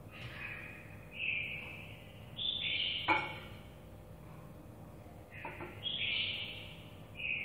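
Kitchen knife cutting a fried egg omelette with lá mơ leaves on a wooden cutting board: short scraping strokes of the blade through the egg and a few sharp knocks of the knife on the board, the loudest about three seconds in.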